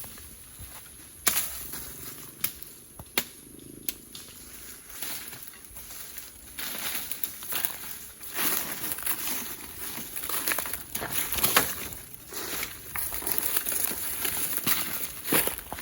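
Dry leaves and twigs crackling and rustling, with a few sharp snaps in the first few seconds and denser crackling from about six seconds on, over a steady high insect hiss.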